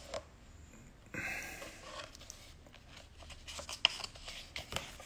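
Paper pages of a large photobook being handled by hand: soft rustling with scattered light clicks and ticks.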